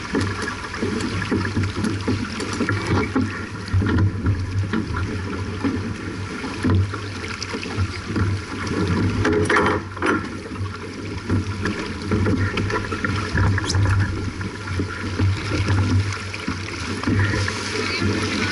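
Wind buffeting the microphone over water rushing along the hull of a J/24 racing sailboat under way: a steady, uneven rumble and hiss.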